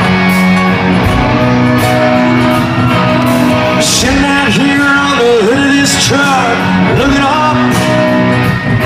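Live country band playing the opening of a slow ballad, loud and unbroken: held chords with guitar lines that slide and waver, and a man singing.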